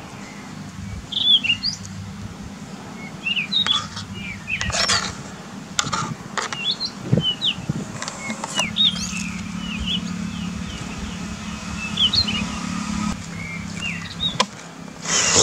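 Kitchen knife chopping tomato, onion and green chilli on a plastic cutting board: irregular sharp taps, with small birds chirping throughout and a low steady hum in the background.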